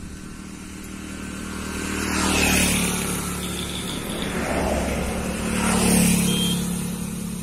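Motor vehicles passing on a road, a motorcycle and a car among them: the engine and tyre noise swells twice, peaking about two and a half seconds in and again around six seconds.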